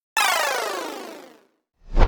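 Synthesized sound effect: a tone with many overtones starts suddenly and sweeps steadily downward in pitch, fading away over about a second and a half. Near the end a short swell of noise rises quickly in loudness.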